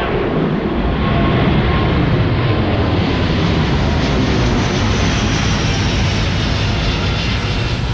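Jet engines of an Airbus A330-900 airliner running, a loud steady noise that swells about a second in and then holds.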